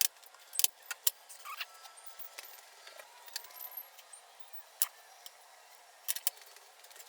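Scattered light metallic clicks and clinks of metal pieces being handled in a shop, with a few sharper knocks near the start, just before five seconds and around six seconds.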